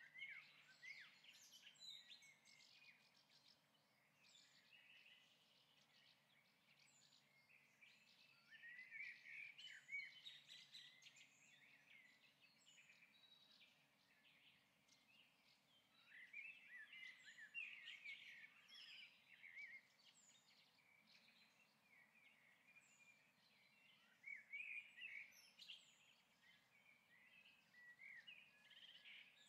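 Near silence, with faint high chirping that comes in a few short spells.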